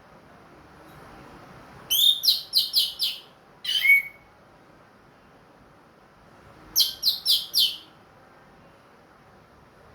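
Orange-headed thrush (anis merah) singing short, rapid phrases: a run of five quick notes about two seconds in, ending on a downward-sliding note, then a run of four quick notes about five seconds later. The bird is in song again after its moult.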